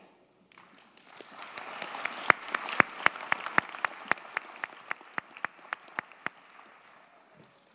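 Audience applauding, building over the first two seconds and dying away near the end, with one nearby person's claps standing out at about four a second through the middle.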